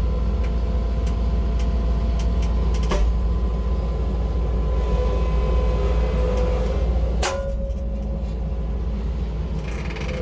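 Heavy machine engine running at a steady rumble during a winch recovery of a stuck skid steer, with a couple of sharp clicks and a faint whine in the middle; the engine note drops a little about seven seconds in.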